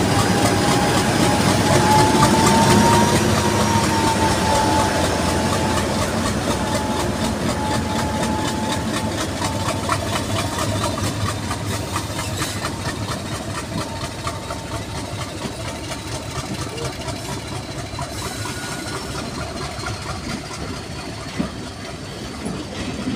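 Class 50 diesel locomotive's English Electric V16 engine working hard as it pulls away, a steady drone with a high whine. It is loudest in the first few seconds as the locomotive passes, then fades as it draws away, leaving the coaches rolling by with repeated wheel clicks on the track.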